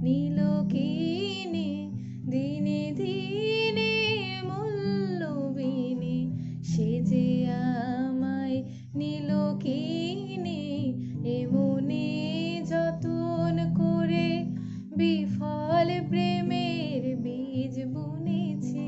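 A woman singing a slow, ornamented Bengali melody with wavering held notes, over acoustic guitar chords.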